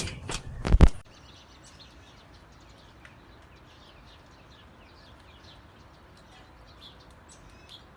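A few sharp knocks in the first second, then the sound drops suddenly to faint bird chirping, short chirps repeated every fraction of a second.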